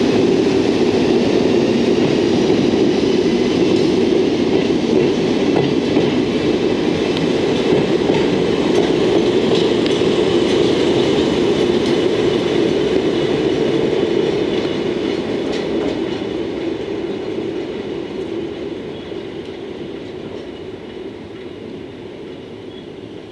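Freight train of an EF65 electric locomotive, Hoki 800 hopper wagons and a DE10 diesel locomotive rolling past at close range, its wheels running steadily over the rails. From about 14 s in the sound fades gradually as the train moves away.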